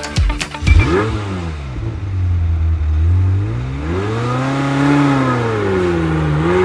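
Car engine revving as an intro sound effect. A hit comes about a second in, then the engine runs steady, revs up and falls back in the middle, and climbs again near the end.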